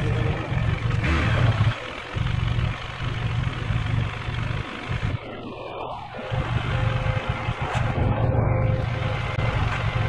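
Husqvarna Svartpilen 401's single-cylinder engine on its stock exhaust, running at low speed in slow traffic. Its low, even pulse drops away briefly around two seconds in and again around the middle, then picks back up.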